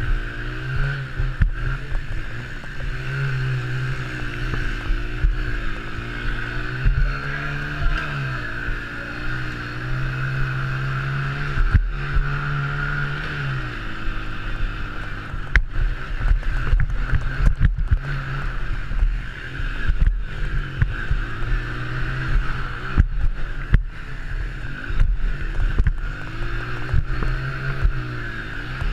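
Honda TRX90 mini quad's single-cylinder four-stroke engine being ridden hard on a dirt track, its pitch climbing and dropping again and again as the throttle is opened and eased off. Sharp knocks and thumps come from bumps and landings, more of them in the second half.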